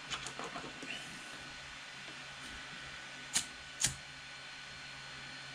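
A lighter struck twice: two sharp clicks about half a second apart, the loudest sounds here, after a few light handling clicks and rustles in the first second. A faint steady hum runs underneath.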